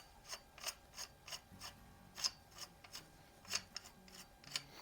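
A run of light, sharp clicks and scrapes from small parts of a CO2 air rifle being handled, likely the dummy end plug of its tube being worked. The clicks come unevenly, about two or three a second.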